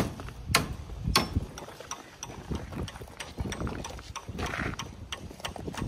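Steel rebar clinking and rattling as a worker works the reinforcement cage by hand: three sharp metallic knocks in the first second and a half, then rapid lighter clicking.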